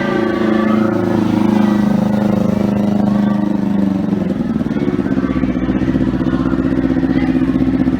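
Yamaha X1R underbone motorcycle's small single-cylinder four-stroke engine running through an aftermarket HGM muffler, at raised revs at first, then dropping to a steady, evenly pulsing idle about four seconds in.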